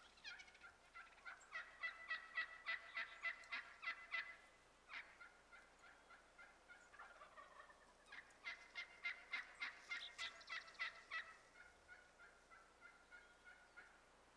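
Wild turkeys calling: two long runs of quick, evenly spaced notes, about five or six a second, the first about four seconds long at the start and the second about three seconds long, about eight seconds in. Softer, sparser notes fall between the runs and trail off after the second.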